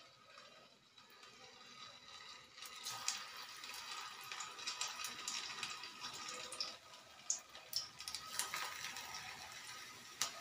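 Pakoda batter deep-frying in hot oil in a small kadai: a sizzle with scattered crackles that starts a few seconds in, as the first pieces go into the oil, and keeps going.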